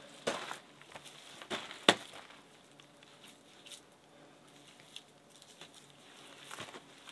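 Wet clay cob being slapped and pressed by hand onto the outer shell of a cob pizza oven: a few sharp slaps in the first two seconds, the loudest just before two seconds in, then faint small taps and rubbing.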